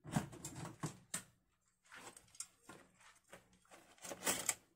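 Wooden chopsticks knocking and scraping against baked chicken wings and the parchment-lined metal air fryer basket as the wings are turned over: a run of irregular clicks and paper rustles, busiest near the end.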